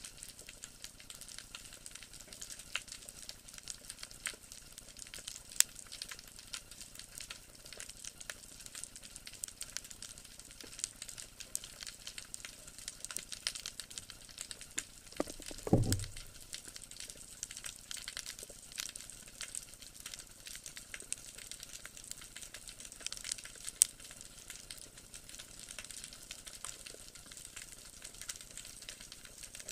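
Underwater crackle of snapping shrimp: a dense, steady patter of sharp clicks, heard through the camera's housing on a rocky seabed. About halfway through comes a single brief low thump that drops in pitch.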